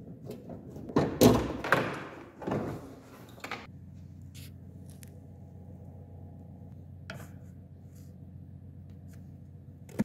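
Fiat Punto's plastic front wheel-arch liner being pulled back and flexed by hand, scraping and rustling with several louder cracks in the first few seconds. After that, a steady low hum continues.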